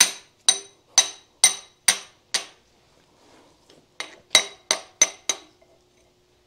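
Hammer striking a steel punch to drive the shift-rail shaft out of the 1927 John Deere D's transmission case, each blow ringing. There are about six steady blows, a pause of about a second and a half, then five quicker blows; the shaft comes free of the first shift fork.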